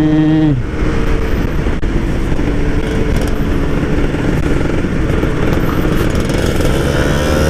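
Yamaha RX-King 135cc two-stroke motorcycle engine with a stock exhaust, heard from the rider's seat. It holds a steady high rev, drops off about half a second in as the throttle closes, then runs under wind and road noise. Its pitch rises again near the end.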